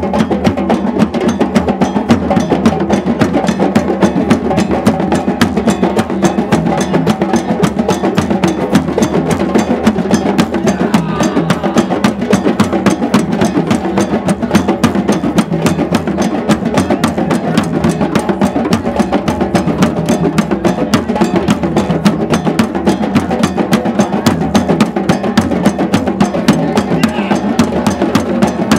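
Drum circle: several hand drums, congas among them, played together in a fast, steady rhythm of dense strokes. Crowd voices are faintly mixed in.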